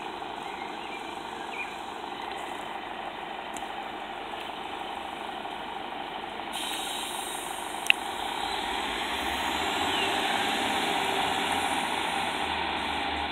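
Class 150 Sprinter diesel multiple unit arriving slowly at the platform, its underfloor diesel engines running steadily and growing louder as it draws near, with a low engine drone coming in about eight seconds in. A single sharp click at about eight seconds is the loudest moment.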